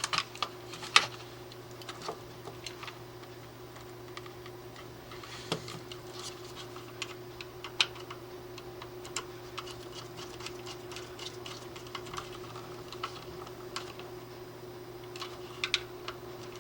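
Scattered small clicks and taps of hands fitting wires into a screw terminal block of a digital temperature controller, over a faint steady hum.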